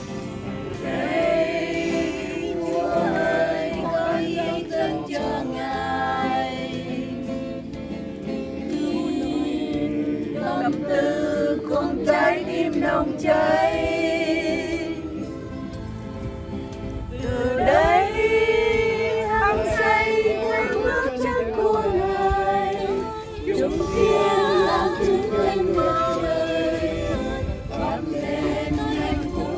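A group of voices singing a hymn, with a softer stretch about halfway through before a new phrase begins.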